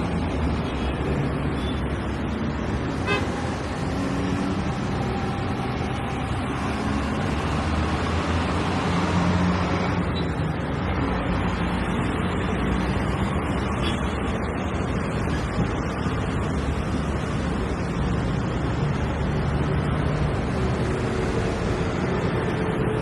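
Busy road traffic: a steady mix of car, bus and truck engines and tyre noise, with a short horn toot about three seconds in.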